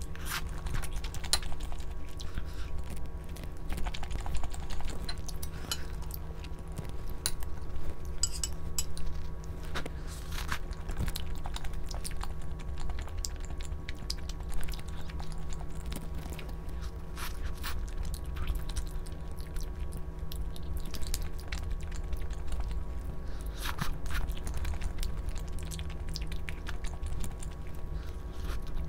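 Close-up eating sounds: a person chewing and biting food, with many short, crisp crunches and clicks at an irregular pace.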